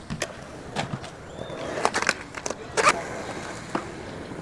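Skatepark sounds: an irregular string of sharp clacks and knocks of wheels and boards on concrete, the loudest about three seconds in, over the steady noise of rolling, with faint voices.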